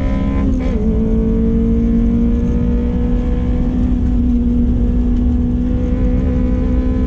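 Toyota MR2's 2ZZ-GE 1.8-litre four-cylinder engine at high revs under hard driving, heard from inside the cabin. Its pitch dips briefly about half a second in, then climbs slowly as the car accelerates, over a low haze of road and wind noise.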